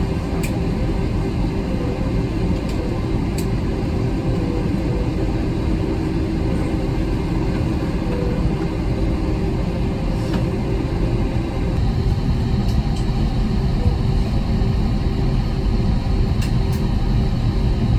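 Steady airliner cabin noise as an Airbus A321 taxis, its IAE V2500 turbofans running at idle. It is an even rumble with a low steady hum, and the power holds level with no run-up.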